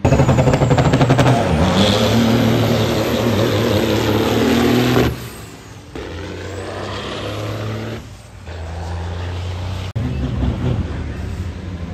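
Diesel semi-truck engines running at full throttle as heavy trucks accelerate. Several short clips are cut together: the loudest stretch lasts about five seconds, then it cuts off suddenly into quieter engine sound.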